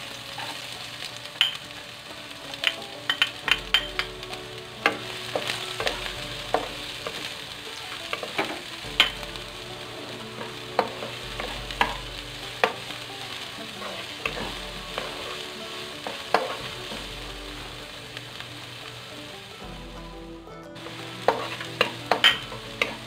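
Chopped red onions sizzling in hot oil in a nonstick wok, sautéing, while a wooden spatula stirs them and taps and scrapes against the pan many times at irregular intervals.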